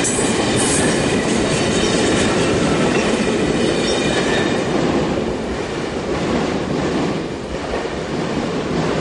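Amtrak passenger train's stainless-steel cars rolling past, wheels clattering over the rails with a faint high ringing. It thins out about five seconds in as the last car goes by, leaving the train's fading rumble.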